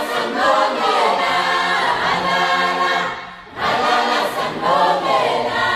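A choir singing a cappella, with a brief break between phrases about three and a half seconds in.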